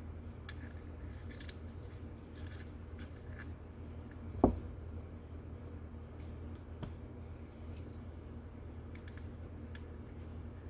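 Faint small clicks and ticks of a screwdriver and tiny screws being fitted into a small-engine carburetor, with one sharper knock about four and a half seconds in, over a steady low hum.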